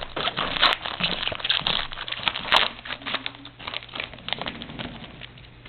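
Trading-card pack wrapper being torn open and crinkled by hand: an irregular run of crackling, thick at first and thinning out in the second half.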